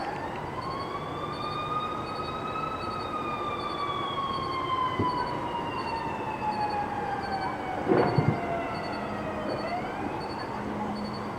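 Siren wailing slowly, its pitch rising for the first few seconds, falling for about seven seconds, then starting to rise again. A cluster of sharp pops sounds about eight seconds in.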